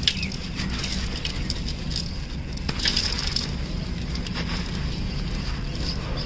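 Sand-cement shapes crushed and crumbled by hand in a steel pot: a continuous gritty crunching and crackling of many small breaks as grains and pebbly bits fall.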